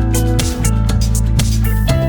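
Background music with a steady beat and a held bass line.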